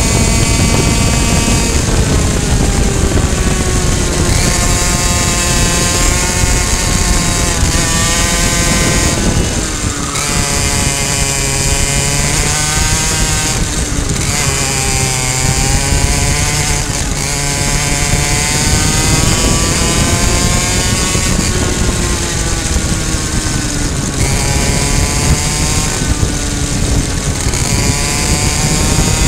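Two-stroke racing kart engine running flat out, heard from on board the kart. Its pitch drops several times as the kart slows for corners, then climbs back up as it accelerates.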